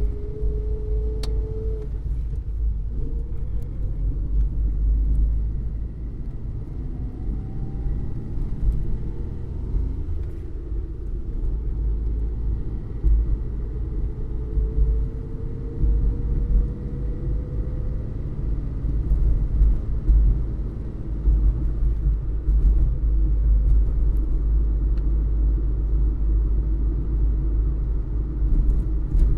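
Ford Fiesta driving, with a steady deep rumble of road and engine noise. The engine note climbs slowly in pitch near the start and again about halfway through as the car gathers speed.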